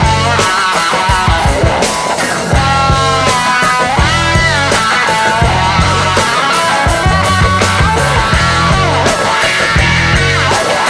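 Rock music with a bending electric-guitar lead over a heavy, pulsing bass line.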